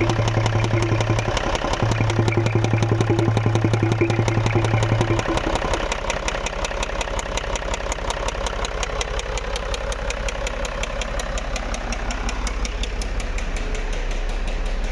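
Range Rover 3.0 V6 diesel idling cold with a rapid, even knock. The mechanic takes the knock for a piston knock. A loud low hum under it drops away about five seconds in.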